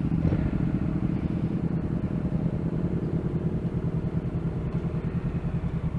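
Motorcycle engine idling steadily, with an even, rapid low pulsing.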